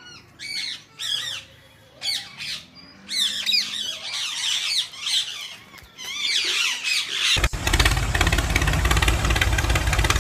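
Small birds chirping in quick, arching calls for the first several seconds. About seven seconds in, the homemade mini tractor's small motor and worm-gear drive start suddenly and run steadily, louder than the birds.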